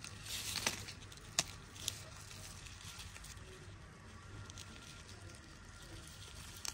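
Quiet outdoor background over a low steady hum, with a short rustle about half a second in and a few sharp clicks, one just after the rustle, one a moment later and one near the end.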